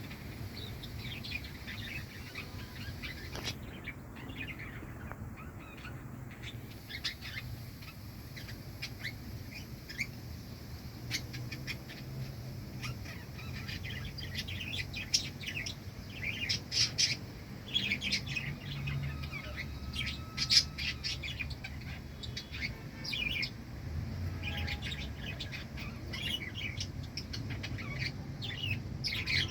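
Small birds chirping and squawking in quick, short calls, sparse at first and busier about halfway through.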